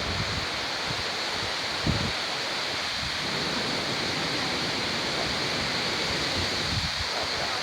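Waterfall rushing steadily, a dense, even wash of falling water, with a brief low bump about two seconds in.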